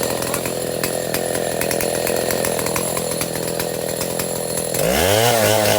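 Chainsaw running under load while cutting, its engine note steady with a dense rapid chatter from the chain. Near the end the engine pitch dips, then climbs again.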